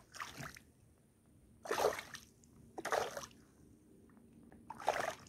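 Short splashes of water, four in all, spaced one to two seconds apart.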